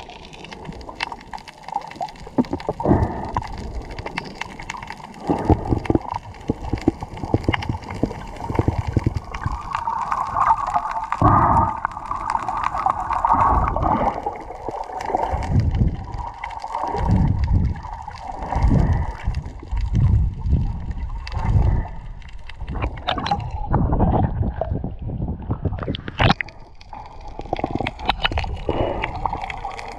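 Sea water heard underwater: muffled sloshing and gurgling in irregular surges.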